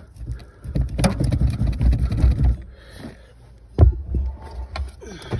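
Metal rattling and scraping as a Land Rover Discovery 2 boot seat's spring-loaded mounting leg is wiggled to work it off its mounting, where it binds on the threads. The rattling lasts about two and a half seconds, and a sharp metal knock comes a little before four seconds in.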